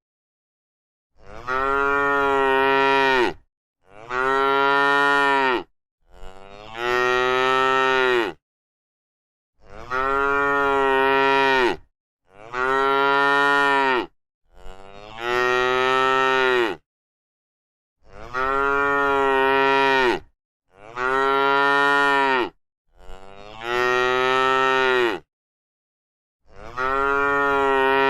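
A cow mooing again and again: about ten long, level moos of some two seconds each, with silence between them.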